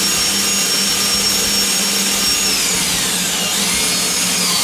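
Cordless drill running fast, spinning a pool cue shaft in a portable cue lathe while an abrasive pad is held against the shaft to smooth it. The drill's whine holds steady, sags in pitch about two and a half seconds in, then climbs back near the end.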